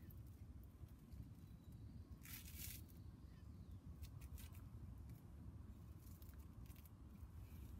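Near silence: a low steady outdoor rumble, with a few faint, brief scratchy rustles about two, four and six seconds in.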